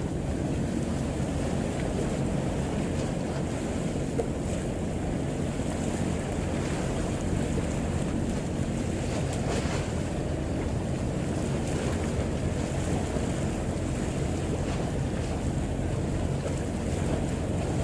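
Steady low rumble of a fishing boat under way, its engine running evenly, with wind buffeting the microphone and sea noise.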